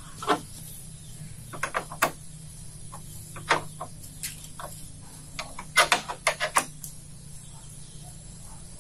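Scattered sharp knocks and taps, irregular, with a quick run of them about six seconds in, over a low steady hum.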